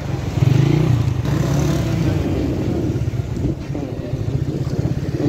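Motorcycle engine running steadily close by, with the mixed noise of street traffic around it.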